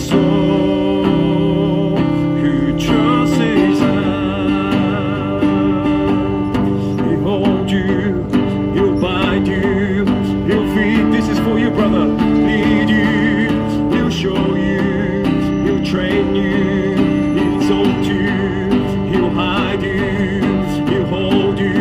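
Acoustic guitar strummed under a singing voice: a worship song performed by a street busker.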